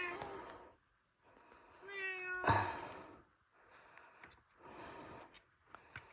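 A pet cat meowing: a short meow at the start, then a longer, steady meow about two seconds in, followed by faint soft noises.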